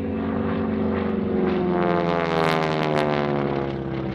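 North American SNJ-6 Texan's Pratt & Whitney R-1340 nine-cylinder radial engine and propeller at aerobatic power, passing overhead. Its pitch drops as it goes by, and it is loudest about halfway through.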